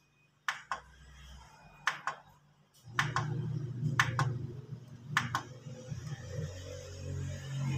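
Plastic buttons on a Sony SHAKE-X10D hi-fi clicking about five times, roughly once a second, each press a quick double click, as the sound-field presets are stepped through. A low steady sound runs underneath from about three seconds in.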